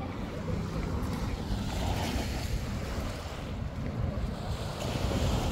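Surf washing onto a sandy beach, swelling about two seconds in, with wind rumbling on the microphone.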